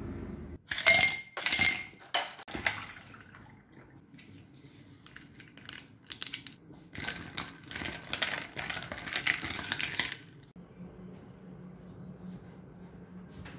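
Sharp clinks of glass and dishware about a second in. Then a few seconds of hissing, fizzing liquid with ice knocking in a tall glass as kombucha powder is mixed into ice water.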